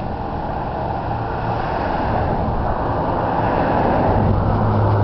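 Highway traffic passing, with a steady rush of wind on the microphone. A low engine hum swells and the noise grows louder near the end as a vehicle approaches.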